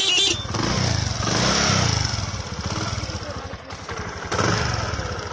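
A motorcycle horn sounding in a fast pulsing pattern cuts off just after the start. Then the single-cylinder engine of a Bajaj Discover 100 runs at idle, with one short blip of the throttle about a second and a half in.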